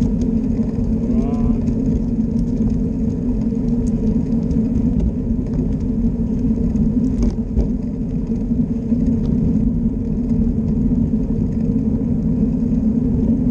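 Steady hum and low rumble of a small ride-on vehicle rolling along a paved path, its motor or drive giving an even tone that holds throughout.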